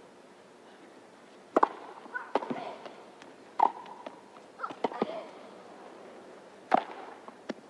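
Tennis rally: a series of sharp racket-on-ball strikes and ball bounces, about seven in all at roughly one a second, starting about a second and a half in.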